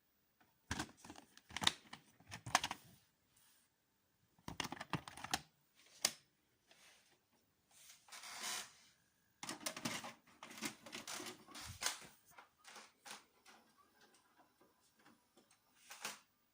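Faint, irregular clicking and tapping with some rustling, in clusters broken by short pauses: a single sharp click about six seconds in, a longer rushing rustle a couple of seconds later, then a denser run of clicks toward the end.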